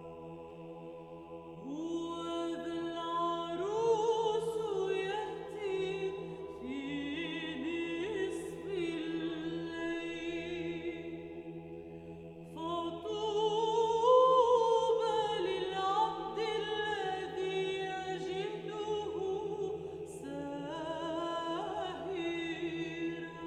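Background music: choral or a cappella voices singing over sustained held tones, swelling about a second and a half in and again about twelve seconds in.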